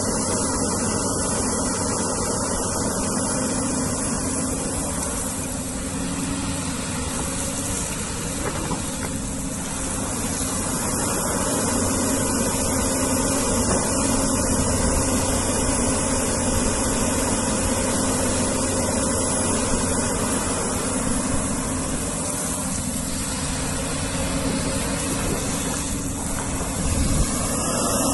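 Hyundai R210W-9S wheeled excavator's diesel engine running steadily while it digs, with a steady hiss over the engine hum.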